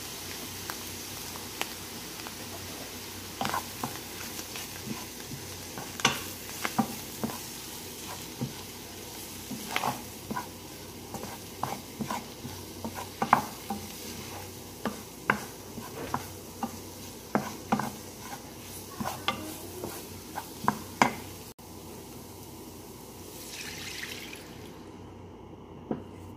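Wooden spoon stirring sliced mushrooms, onions and a tablespoon of flour in a sizzling nonstick frying pan, with frequent knocks and scrapes of the spoon against the pan over a steady frying hiss. The sizzle dies away near the end.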